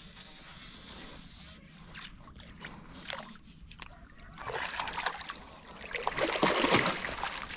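Water splashing and sloshing, faint at first and louder and choppier from about halfway in.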